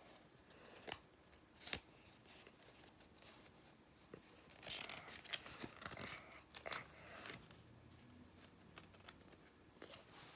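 Near silence broken by faint, scattered clicks and rustles of handling, with a small cluster of them in the middle.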